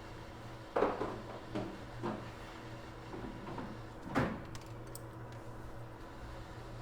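Light knocks and taps of tools handled on a microsoldering bench during CPU cleaning: four short knocks, the loudest about four seconds in, over a steady low hum.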